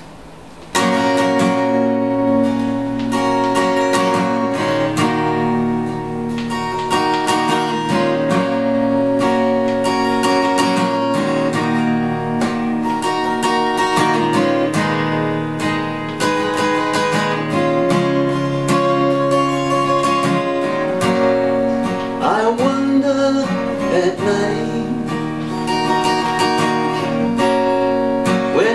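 Acoustic guitar playing an instrumental song intro, starting about a second in: ringing chords and picked notes over low bass notes.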